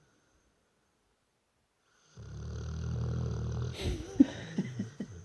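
Snoring: after about two seconds of quiet, one long low snore, which breaks off about a second and a half later into a snort and a few short snuffles.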